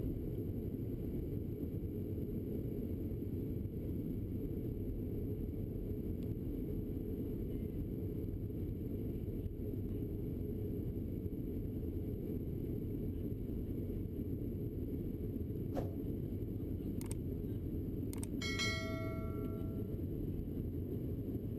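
Steady low rumble of a Boeing 737's engines and cabin heard from inside the cabin as the airliner taxis. Near the end, a few sharp clicks and a bright bell chime from a subscribe-button sound effect sound over it.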